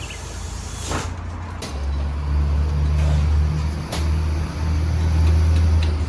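A vehicle engine running with a steady low hum that sets in just under two seconds in and briefly dips about four seconds in.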